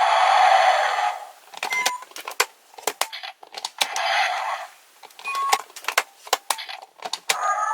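DX Zyuoh Changer Final toy: repeated plastic button clicks and short electronic beeps. Two animal sound effects, each about a second long, play from its small speaker, one at the start and one about four seconds in.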